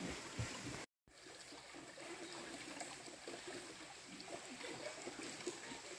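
Shallow rocky stream trickling over stones, with the sound cutting out for a moment about a second in.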